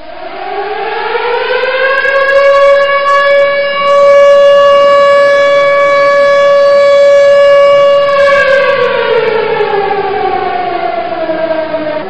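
A siren rising in pitch over the first two seconds, holding one steady loud tone, then slowly falling in pitch from about eight seconds in.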